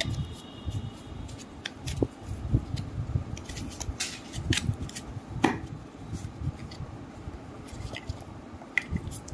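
Handling noise as a cylindrical packaging tube is opened: scattered, irregular clicks, taps and scrapes of fingers on the tube and its packing insert, with a sharper click about five and a half seconds in.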